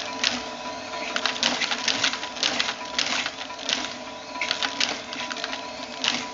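Narrow-fabric loom weaving tape: a busy, uneven mechanical clatter of clicks and knocks from the swinging shuttle and beating mechanism, over a steady machine hum.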